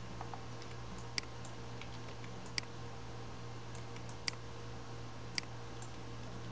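Sharp, isolated clicks of a computer mouse and keyboard, about four loud ones a second or more apart with a few fainter ones between, over a steady low hum.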